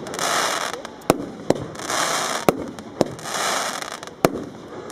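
Jorge New Generation 7 firework battery firing shot after shot. Five sharp bangs come at uneven intervals of about half a second to a second, along with three long crackling hisses as the effects burst.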